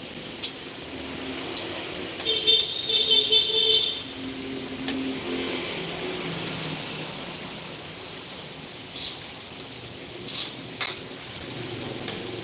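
Chicken meatballs frying in hot oil: a steady high sizzle with scattered sharp pops, and a short squeaky sound about two seconds in.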